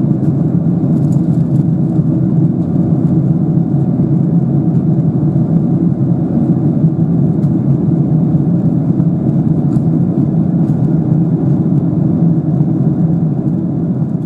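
Steady cabin roar of a Boeing 777-300ER in flight, heard from a window seat at the wing: its GE90 turbofan engines and the rushing airflow make a loud, even, low rumble. It begins to fade near the end.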